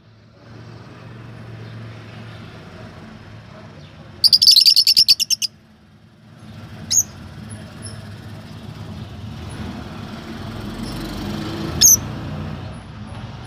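Lovebirds chirping: a loud rapid burst of about ten sharp chirps a few seconds in, then two single sharp chirps, over a steady low hum.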